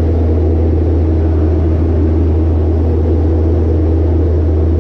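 Piper Cherokee 180's four-cylinder Lycoming O-360 engine and propeller making a loud, steady drone with a strong low hum, with no change in pitch.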